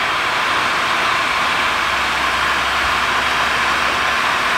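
Electric heat gun blowing a steady hiss of hot air onto heat-shrink butt connectors, shrinking them and melting their adhesive seal around the crimped wire splices. A low hum joins about a second in and stops near the end.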